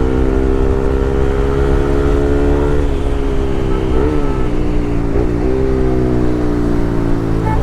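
Bajaj Pulsar RS200 single-cylinder engine running through an aftermarket Akrapovic full-system exhaust, held at fairly steady revs on the move. Its pitch dips and climbs back quickly about four seconds in and again about five seconds in.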